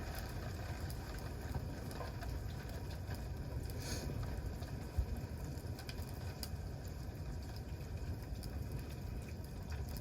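Wood campfire burning, with scattered crackles and pops over a steady low rumble.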